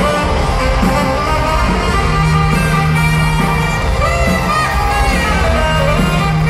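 Live rock band playing an instrumental passage: a lead electric guitar melody with bending, sliding notes over bass and drums, heard from within the audience.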